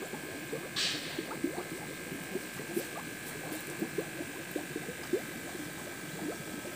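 Aeration bubbling in a fish tank: air bubbles rising and breaking at the surface in a continuous, irregular patter of small plinks and pops, over a faint steady whine.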